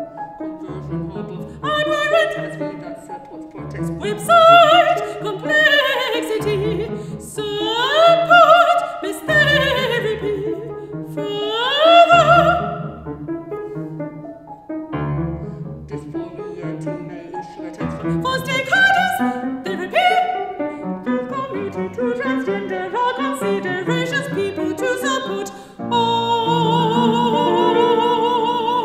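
Mezzo-soprano singing in a classical operatic style, with wide vibrato and swooping phrases, over piano accompaniment. Near the end she holds one long high note with strong vibrato.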